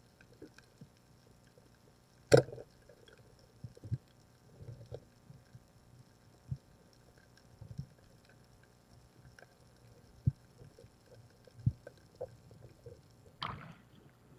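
Muffled underwater sound from a diving camera: scattered faint clicks and knocks, with one sharp knock about two seconds in and a brief rushing noise near the end.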